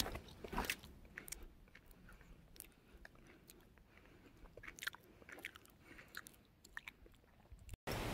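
Chewing a chocolate bar close to the microphone: faint, irregular crunching.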